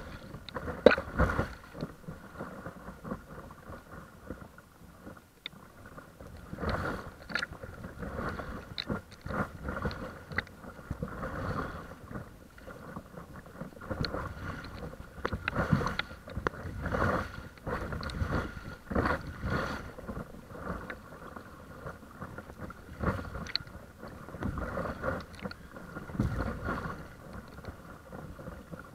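Small waves slapping and splashing against the nose of a paddleboard under way, in irregular bursts every second or so. A faint steady whine runs underneath.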